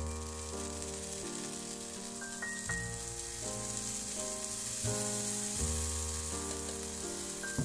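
Butter sizzling steadily in a frying pan under frying egg-in-bread toasts, over background music.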